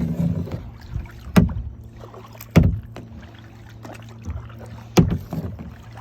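Kayak paddling: four sharp paddle strokes at uneven gaps of one to two and a half seconds, each a quick splash of the blade in the water that fades at once.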